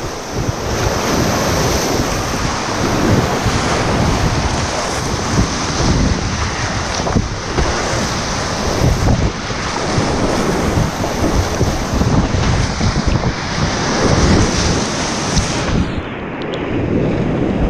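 Loud, continuous rushing and splashing of a river in flood, brown whitewater pouring around a kayak, with buffeting on the action camera's microphone and frequent short thumps of water hitting the boat and paddle.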